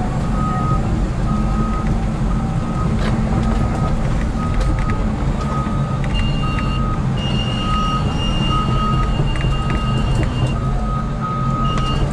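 Cat excavator's diesel engine running steadily while its motion alarm beeps about once a second as the machine moves. A higher steady tone sounds for a few seconds past the middle and briefly again near the end.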